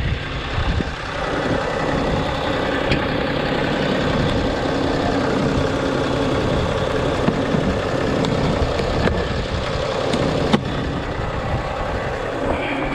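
Case IH Puma 165 tractor's diesel engine idling steadily, with a few sharp clicks and knocks as a plastic storage box on the cab step is closed and the cab door is opened.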